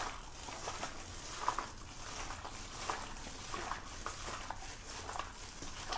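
A plastic-gloved hand squeezing and turning pork neck chunks in marinade in a stainless steel bowl: irregular soft wet squishes and faint crinkles, a few each second.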